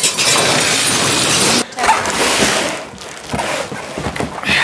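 A monster truck crushing a car: glass shattering and metal crunching in a dense crash that cuts off suddenly about a second and a half in. Then quieter cardboard rustling and knocks as a bike is lifted out of its shipping box.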